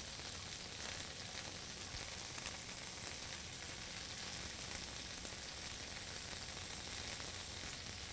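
Ground chuck burger patties sizzling on a hot griddle: a steady frying hiss.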